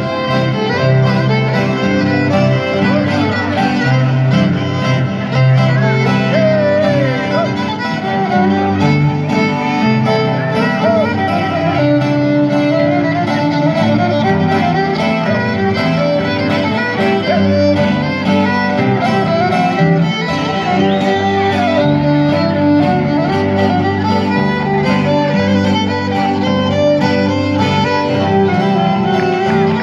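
Live band playing Greek dance music, with a violin leading the melody over a steady bass and beat.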